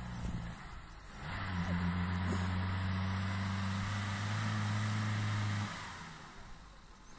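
Compact 4x4 SUV's engine revved and held at high revs for about four seconds while the car struggles to drive out of loose soil where it is stuck, then dropping back near the end.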